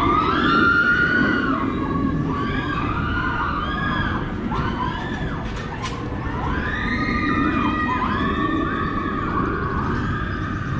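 Crowd of children shouting and screaming, many voices overlapping in rising-and-falling calls over a low rumble, with a sharp click about six seconds in.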